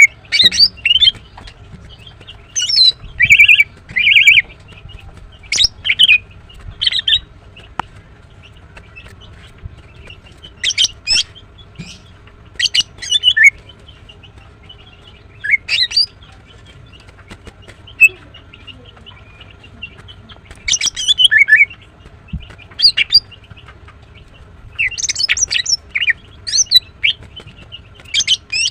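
Female greater green leafbird (Chloropsis sonnerati) calling in short, sharp, high-pitched chirping phrases, repeated every second or two with brief pauses between, over a faint steady hum.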